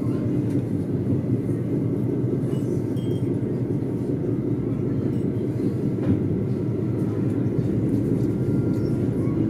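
Stadler FLIRT passenger train under way, heard from inside the carriage: a steady low rumble and hum of running noise.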